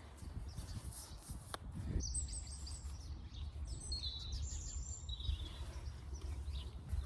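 A songbird singing a short run of high chirping notes for a few seconds in the middle, over a low steady rumble.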